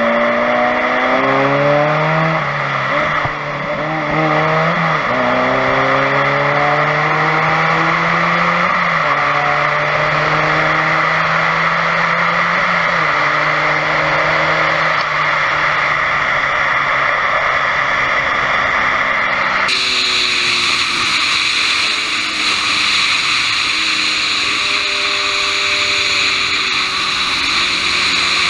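Kawasaki Ninja 1000's inline-four engine under hard acceleration, its pitch climbing and dropping back several times as it shifts up through the gears, over heavy wind rush on the microphone. About two-thirds through, the sound changes abruptly to a steadier engine note and wind.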